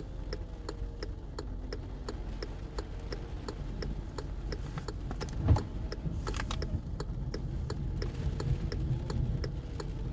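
Car's turn-signal flasher ticking evenly, about two and a half ticks a second, over a low engine rumble, with a single thump about five and a half seconds in.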